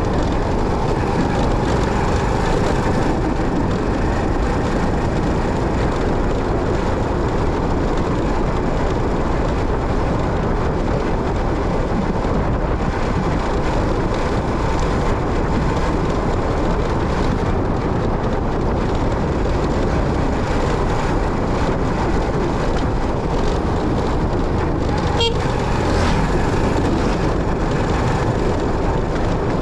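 Steady wind and road noise of a motorcycle under way, with a short horn toot near the end.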